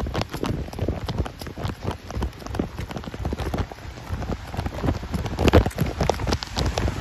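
Light rain: many irregular drops tapping close to the microphone over a low rumble, with a louder cluster of taps about five and a half seconds in.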